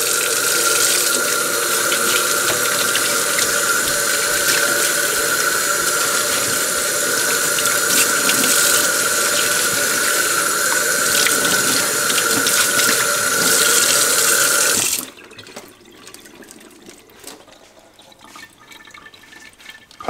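Kitchen tap running into a stainless steel sink while a slab of dry-cured bacon is rinsed under the stream to wash off the excess salt, a steady rush of water with a steady tone through it. The tap is shut off about fifteen seconds in, leaving only faint handling sounds.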